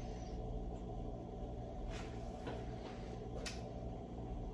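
Quiet room with a steady low hum and a few faint, short clicks about two, two and a half, and three and a half seconds in.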